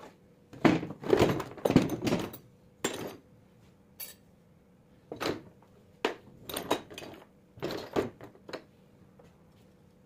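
Irregular metallic clattering and knocks in several short clusters: metal alternator parts and tools being handled during alternator reassembly, then quiet for the last second or so.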